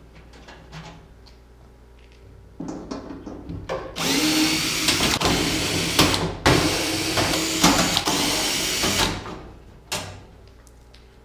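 Power drill-driver backing screws out of a torpedo heater's sheet-metal cover: a short run about two and a half seconds in, then two longer runs with a brief break between them, ending about nine seconds in.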